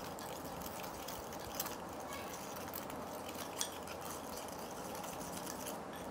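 Metal spoon stirring thick fuller's earth paste in a glass bowl, faint, with a couple of light clicks of the spoon against the glass.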